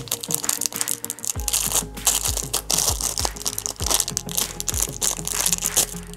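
Plastic wrapper of a toy blind bag crinkling and tearing as it is opened by hand, in many quick irregular crackles, over background music with a steady beat.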